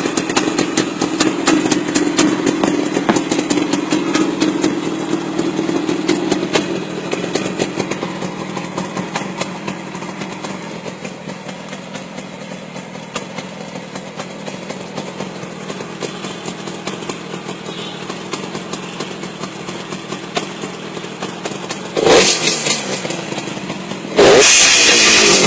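Yamaha RD350's two-stroke parallel-twin engine running, settling to a quieter idle after several seconds. Two short, loud bursts come near the end.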